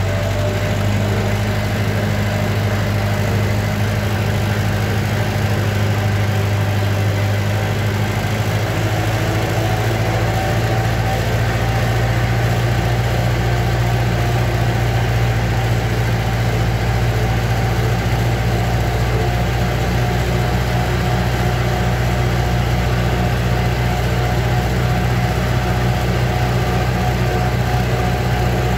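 Vintage tractor engine running steadily under way, heard from the driver's seat, a loud, even low-pitched drone; its note changes slightly about eight seconds in.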